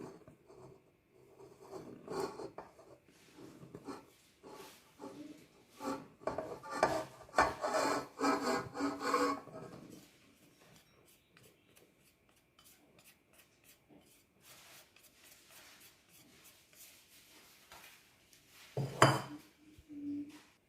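Flour being added to a mixing bowl: a utensil scraping and rubbing against the bowl, in irregular strokes that grow busier for a few seconds, then stop. A short louder scrape comes near the end.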